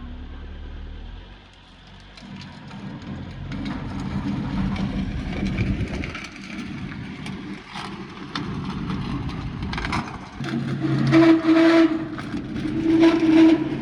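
A vehicle engine running and building, with two louder, steady-pitched surges near the end.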